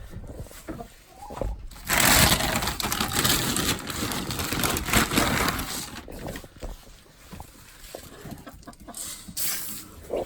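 Chickens clucking, with a loud rustling, scuffling noise starting about two seconds in and lasting around four seconds.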